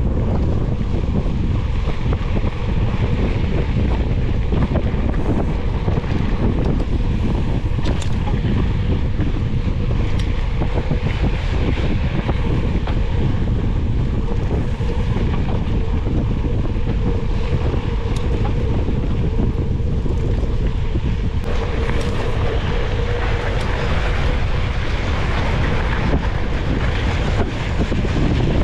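Wind buffeting an action camera's microphone on a moving mountain bike: a steady, loud rumble. About 21 seconds in it turns brighter and hissier.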